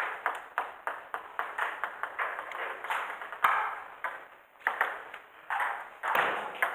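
Table tennis balls being hit and bouncing in rallies, quick irregular clicks several a second off bats and tables, with more than one table in play, each click ringing briefly in the hall.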